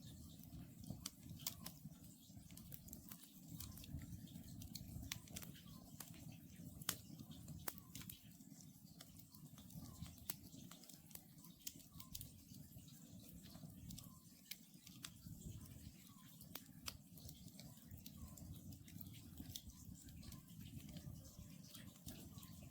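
Wood campfire burning quietly, its logs crackling with many sharp little pops over a low steady rumble. An Oriental scops owl calls faintly at intervals.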